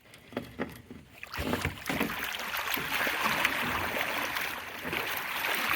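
Water splashing and churning, with many small sharp slaps, as a hoop net crammed with buffalo fish is hauled up and the fish thrash at the surface. It starts about a second and a half in and keeps up steadily.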